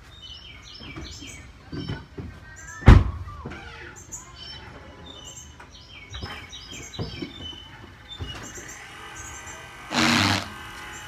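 Small birds chirping over and over, with one sharp thump about three seconds in and a brief loud rush of noise about ten seconds in.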